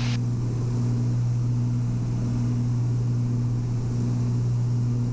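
Twin piston engines and propellers of a Beechcraft Baron B55 droning steadily in cruise, heard from inside the cockpit, with a slow regular pulsing in the hum.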